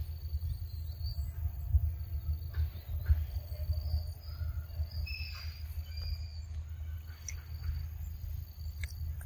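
Low, fluttering rumble of wind on the microphone, with short high bird chirps and whistles in the background.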